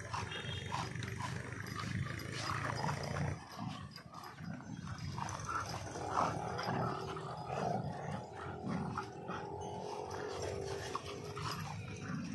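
Dogs growling in a scuffle, with a German shepherd and a black Labrador among them, tugging and lunging at each other. The growls are irregular, over a continuous low rumble.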